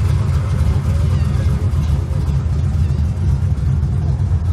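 Classic car engine rumbling steadily at low cruising speed.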